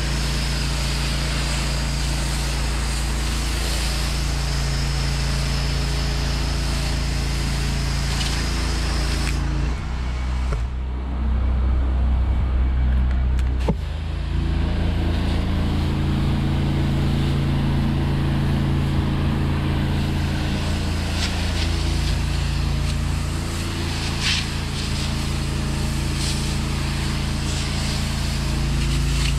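Pressure washer's Honda GX690 V-twin engine running steadily, with the hiss of the spray wand laying on soap through a downstream injector. About ten seconds in the spray stops and the engine note changes; it starts spraying again about four seconds later.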